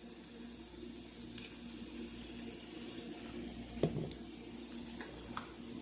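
Potatoes, zucchini and egg frying in a pan: a quiet, steady sizzle, with a few light clicks, the clearest about four seconds in.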